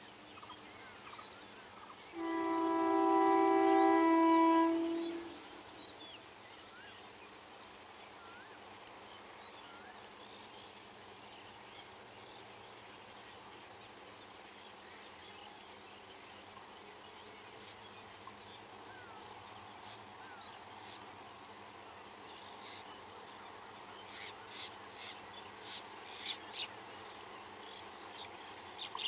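The electric locomotive's multi-tone horn sounds once for about three seconds, a chord of several steady notes. It then gives way to a faint, steady, high-pitched hum of insects as the WAP4 draws near. A few short high clicks come near the end.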